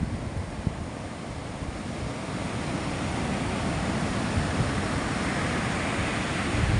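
Sea surf washing with wind buffeting the microphone; the surf noise swells gradually toward the second half.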